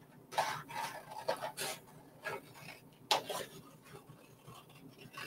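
Scissors cutting cardstock: a series of short, irregular snips as shapes are cut out, the sharpest about three seconds in.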